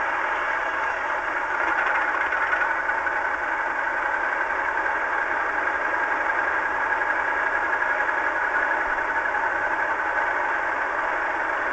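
Legomanbiffo DCC sound decoders in two model Class 37 diesel locomotives playing a recorded English Electric engine at idle through small onboard speakers. The sound is steady and thin with no deep rumble, and grows a little louder about two seconds in.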